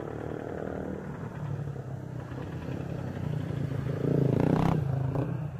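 Motorcycle engine running and drawing near, loudest about four seconds in, then easing off.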